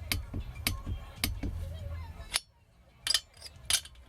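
Click-type torque wrench and ratchet on nuts being torqued to 17 lb ft: a series of sharp metallic clicks, roughly two a second. A low hum underneath stops about halfway through.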